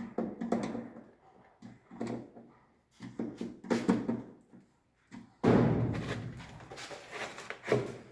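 Plastic miniature circuit breakers knocking and clattering as they are picked up, sorted and set down, with a louder, longer rummaging clatter about five and a half seconds in.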